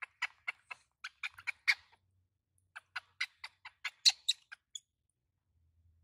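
Baby macaque squeaking in quick short calls, about four a second, in two runs with a pause of about a second between them: distress calls from a baby being dipped in bath water.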